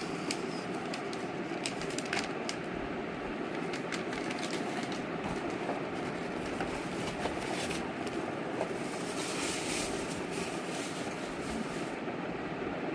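Popcorn machine running: a steady whirring noise with scattered sharp clicks and pops of kernels.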